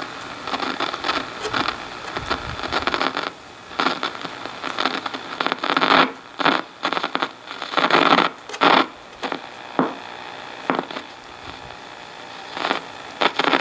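Static hiss from a 1940 Philco 40-155 tube radio's speaker as it is tuned across the shortwave band, broken by many irregular, sudden bursts of noise and crackle, with no station coming through.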